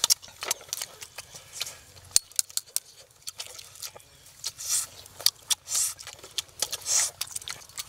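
A metal spoon tapping and scraping on an eggshell as the egg is cracked and picked open, with many irregular sharp clicks and a few short hissing scrapes.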